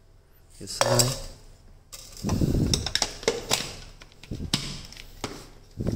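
Hard plastic clattering and clicking as the cyclone dust-cup attachment of a Makita cordless handy vacuum is handled and pushed onto the cleaner's nozzle: a scraping rattle about two seconds in, then a string of sharp clicks.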